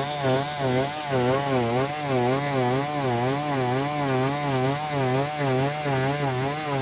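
Chainsaw running under load, cutting wood, its engine pitch wavering up and down in a quick, steady rhythm.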